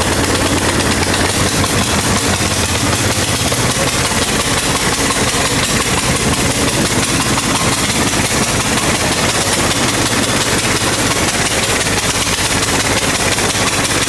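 A Coleman go-kart's small gas engine runs steadily at idle with a fast, even firing beat, on choke after a cold start with starter fluid.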